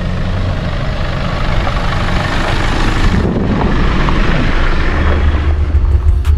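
A four-wheel drive's engine running and its tyres rolling as it crawls down a steep dirt descent in low range, with four-wheel drive and the diff lock engaged. A heavy low beat comes in near the end.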